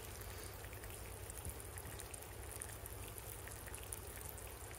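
An egg sizzling as it fries in hot oil in a frying pan on a portable gas camp stove: a steady sizzle with many small crackling pops.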